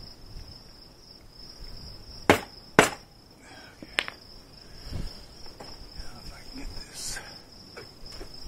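Two sharp knocks about half a second apart, then a few lighter clunks, as a stainless steel Staintune exhaust muffler is shoved and twisted into its mounting on a Honda VFR 800. Crickets chirp steadily in the background.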